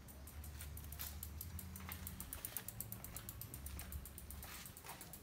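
Rapid, even ticking of a bicycle's freewheel ratchet as the bike is wheeled along, over a low steady rumble.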